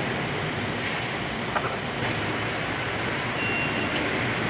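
Hi-rail truck running along railroad track, a steady noise of engine and rail wheels, with a short high tone near the end.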